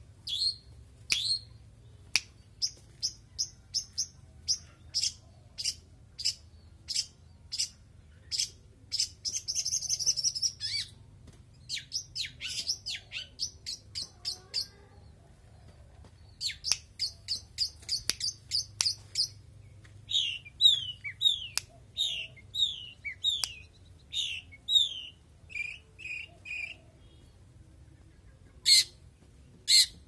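Long-tailed shrike (cendet) singing: runs of short, sharp chip notes, a buzzy rattle about ten seconds in, and later a quick series of down-slurred whistled notes, with a few loud calls near the end.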